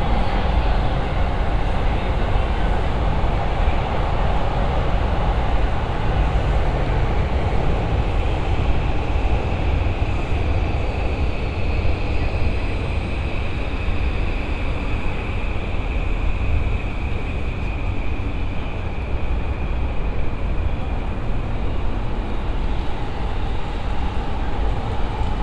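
A passing train's steady rumble mixed with city street traffic, with a faint high whine in the middle.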